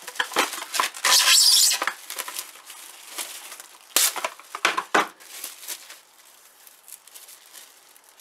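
Plastic cling wrap pulled off its roll, a loud hiss about a second in, followed by a few sharp crackles around four to five seconds and then softer crinkling as the film is handled.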